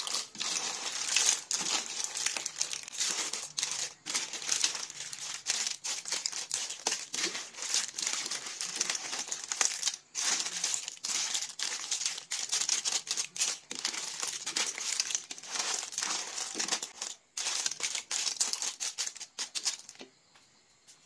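Clam shells clattering and clicking against each other and the stainless steel pot as a pot of cooked clams and shrimp in sauce is stirred with a spoon: a dense run of small clicks and rattles that stops shortly before the end.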